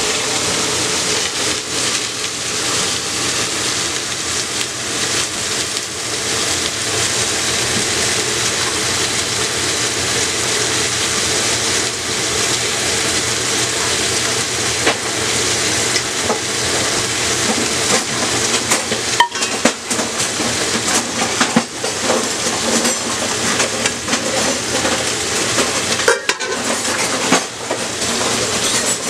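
Food sizzling steadily in a hot pan, with a few brief knocks of a glass blender jar and kitchenware being handled about two-thirds of the way in and near the end.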